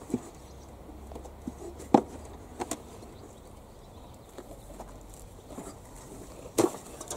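Scattered sharp clicks and knocks, about half a dozen, of gloved hands working at parts and electrical connectors in a car's engine bay, the loudest about two seconds in and near the end, over a low steady rumble.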